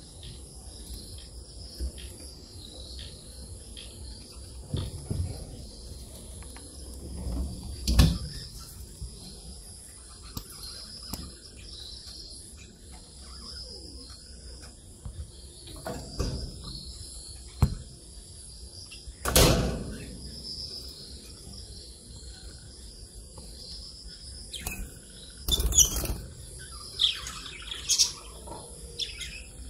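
Steady high insect trilling with occasional bird chirps, broken by a few loud thumps or knocks, the loudest about eight, nineteen and twenty-six seconds in.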